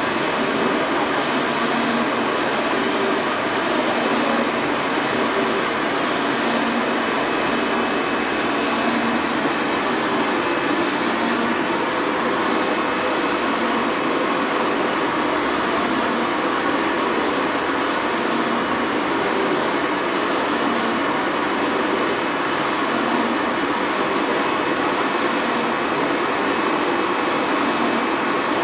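Large flatbed UV printer running while printing a plastic sheet: a loud, steady hiss-like machine noise that pulses a little more than once a second as the print-head carriage with its UV curing lamp sweeps back and forth.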